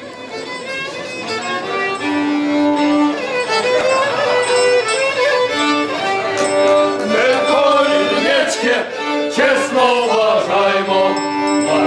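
Fiddle playing a Hutsul carol (koliada) tune in long held and bowed notes, growing louder over the first few seconds.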